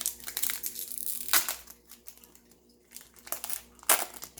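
Crinkling and tearing of a foil trading-card pack wrapper being opened by hand, with two sharper, louder crackles, one about a second and a half in and one near the end.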